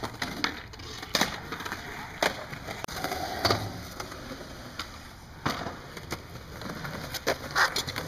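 Skateboard wheels rolling on concrete, with sharp clacks of the boards striking the ground several times.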